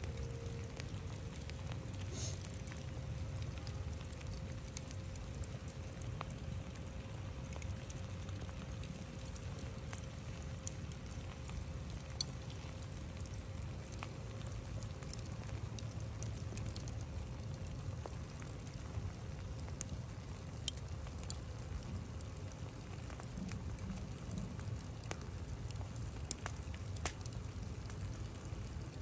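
Glowing charcoal embers crackling under foil-wrapped chicken grilling directly on them: a soft, continuous crackle with scattered sharp pops, a few louder ones in the second half.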